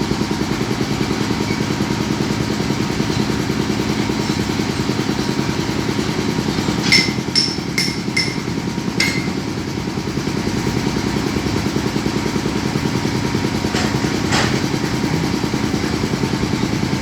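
Excavator's diesel engine running steadily with a fast, even pulse, broken by a quick run of about five sharp metallic clanks about seven seconds in and two more around fourteen seconds.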